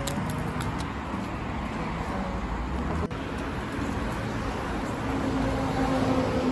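Street traffic noise: a steady low rumble of passing road vehicles, with a short break about three seconds in.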